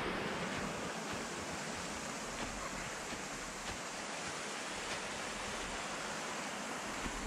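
Steady rush of flowing water from a creek or waterfall, an even hiss with a few faint ticks.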